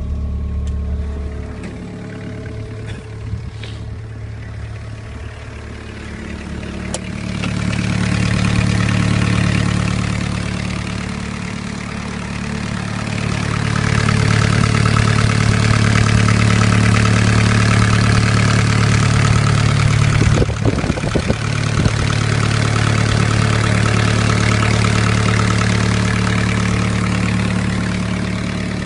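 Hitachi ZX-30 mini excavator's diesel engine running. It idles at first, then speeds up a few seconds in, drops back, and holds a higher steady speed from about halfway through.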